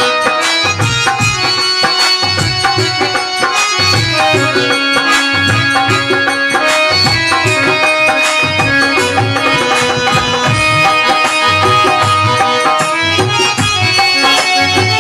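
Instrumental interlude of an Indian folk song: hand drums keep a steady beat of low strokes under a melody of held notes.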